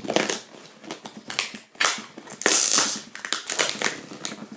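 Cardboard shipping box being worked at by hand while trying to get through the packing tape: irregular crunching and crackling of cardboard and tape, loudest a little past halfway.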